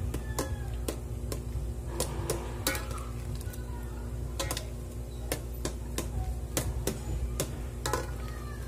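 Metal ladle stirring soup in a large metal pot, clinking against the pot in irregular knocks about one or two a second, over a steady low hum.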